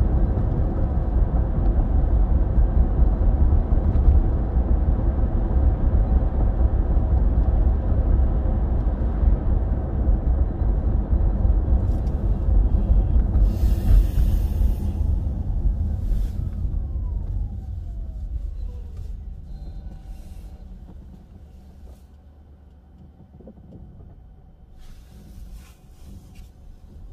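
A car's steady low road rumble and tyre noise while driving at city speed, fading away over the last third as the car slows to a stop, with a faint falling whine as it slows.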